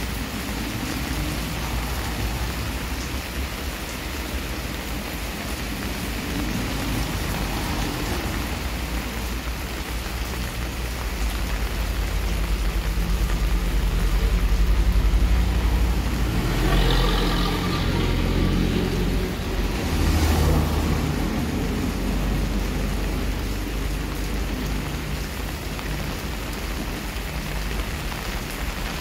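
Steady heavy rain falling and splashing on a wet concrete driveway and garden plants. About halfway through, a low rumble swells and then fades over several seconds.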